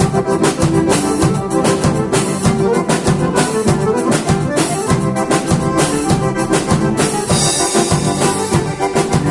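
Instrumental gaúcho dance music: an accordion leads over a drum kit keeping a steady dance beat.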